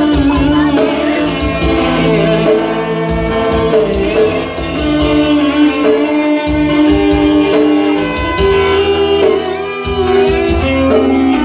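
Instrumental interlude of a Malay-language pop love song: a lead melody in long held notes over guitar and bass accompaniment.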